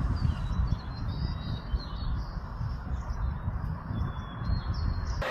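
Small birds chirping over a low, uneven rumble.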